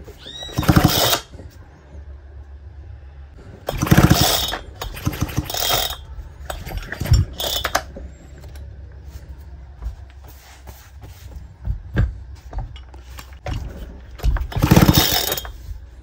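Clatter and scraping from an old two-stroke chainsaw being handled and worked on by hand: several short, loud bursts of plastic and metal noise with smaller clicks between them.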